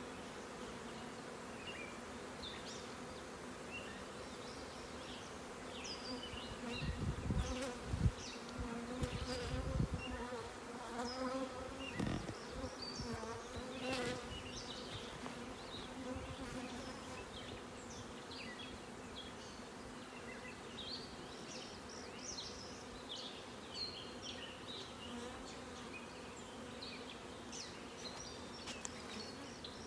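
A mass of honey bees from a freshly shaken-in package buzzing steadily around the open hive, a continuous hum. A few low bumps come between about 7 and 12 seconds in.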